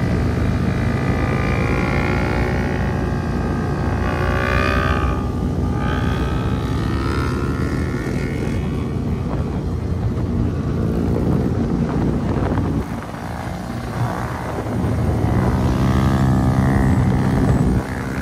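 Motorcycle engines of a group ride running and revving, the pitch climbing and dropping in repeated revs. The sound dips briefly about two-thirds of the way through, then builds again.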